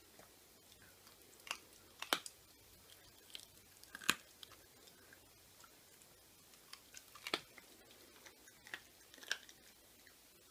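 Whippet puppy chewing a raw neck held in a hand, with about half a dozen short, sharp crunches of bone spread irregularly through the gnawing, the loudest about two and four seconds in.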